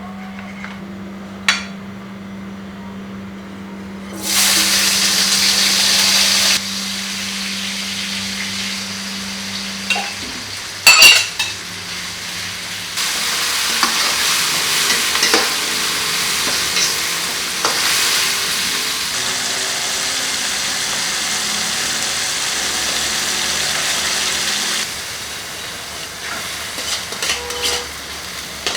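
Chopped tomatoes and onion frying in hot oil in a pan. The sizzling jumps up loudly about four seconds in and swells again later, while a spatula stirs and clatters against the pan, loudest about eleven seconds in. A steady low hum runs under the first ten seconds.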